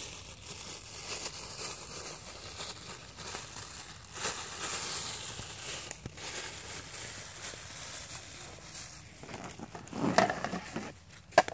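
Thin plastic bag crinkling and rustling as it is handled, with a louder rustle and a sharp knock near the end.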